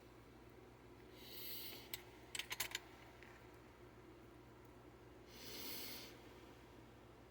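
Two soft breaths through the nose, about four seconds apart, with a quick cluster of small sharp clicks between them, over a faint steady low hum.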